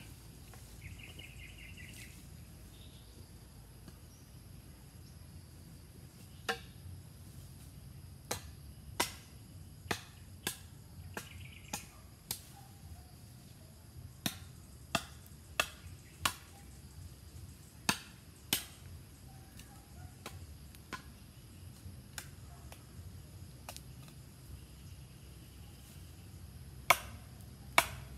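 A hand blade chopping at a wooden post: sharp single strikes in irregular runs, starting about six seconds in, with short pauses between groups. A short bird trill sounds near the start.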